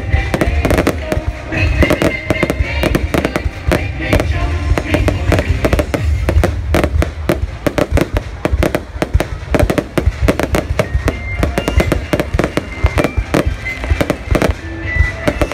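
Fireworks display going off in quick succession: many sharp bangs and crackles a second, with a low rumble under them.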